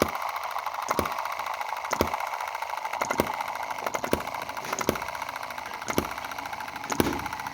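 Small Chinese-made EM2 model hit-and-miss gasoline engine running: a fast steady mechanical clatter between sharp firing bangs that come roughly once a second.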